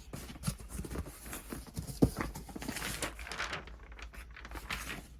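Cardboard boxes of firework cakes being handled and shifted: irregular knocks and scrapes with some crinkling of wrapping, the loudest knock about two seconds in.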